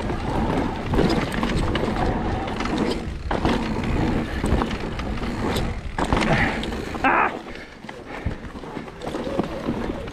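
Mountain bike riding down a dirt trail: steady rumble of tyres on the ground, with the rattle and knocks of the bike over roots and bumps. Brief higher-pitched sounds come about six and seven seconds in.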